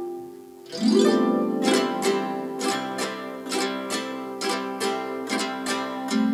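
Jetigen, a Kazakh plucked zither, played solo. Ringing notes fade briefly, then a rising sweep across the strings just before a second in leads into a steady run of plucked notes.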